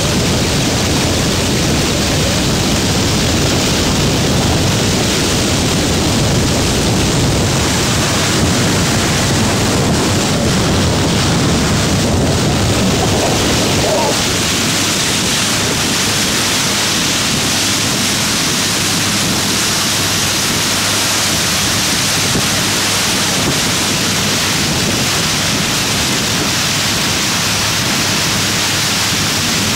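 Small tiller-steered motorboat running fast on a river: a loud, steady rush of wind and water spray with no distinct engine note standing out. The low rumble eases a little about halfway through.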